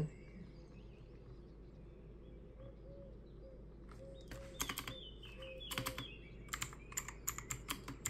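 Typing on the AJAZZ AK992 mechanical keyboard with its tactile green switches. After a near-quiet start, scattered runs of keystroke clicks begin about four seconds in and pick up toward the end.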